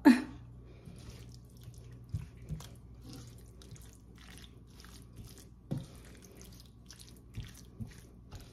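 Meat sauce with marinara bubbling in a pan over raised heat: irregular soft pops and plops several times a second, with a few dull low thumps.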